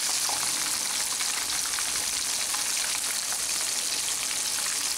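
Floured tadpoles deep-frying in hot oil inside a wire mesh strainer: a steady sizzle with fine crackling.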